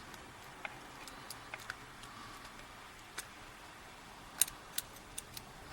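Small sharp metal clicks and ticks of a tool working a circlip off a euro cylinder lock, scattered, coming closer together near the end.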